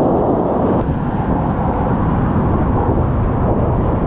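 Strong wind buffeting the microphone over breaking surf: a steady, loud, low noise without let-up.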